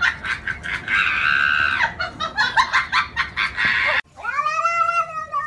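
A rapid run of short, clucking sounds, then about four seconds in a cat yowling in a long meow that rises and falls in pitch.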